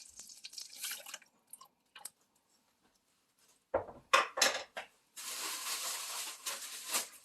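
Kitchen work sounds: a tap running briefly, a few sharp clinks and knocks of dishes or utensils about four seconds in, then the tap running again for about two seconds.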